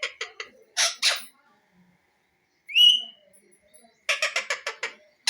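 A parrot calling: a quick chattering run of short notes, two loud harsh squawks about a second in, a single rising whistle midway, and another quick chattering run near the end.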